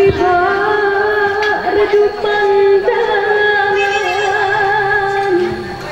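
Music for a stage dance: a woman's voice holds one long sung note for about five seconds, letting it go shortly before the end.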